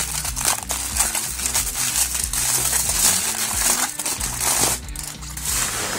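Packaging crinkling and crackling as a styrofoam shipping box is pulled out of its wrapping, with dense irregular crackles throughout, over background music with a bass line.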